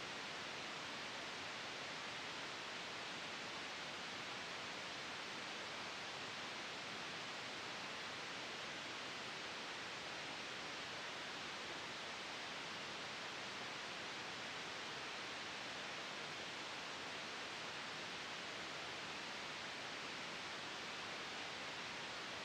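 A faint, perfectly steady hiss with no other sound in it, like a recording's bare noise floor.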